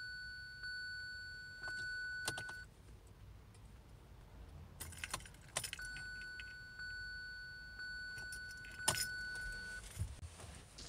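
Car keys jangling in the ignition of a 2017 Kia Sorento as the key is worked again and again without the engine starting. A steady high electronic tone sounds twice for a few seconds each, with sharp clicks in between and a loud click near the end.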